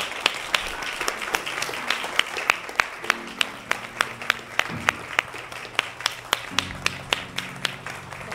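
Audience applauding, with single sharp claps close by standing out about three times a second. Low held musical notes sound underneath about three seconds in and again from near the end.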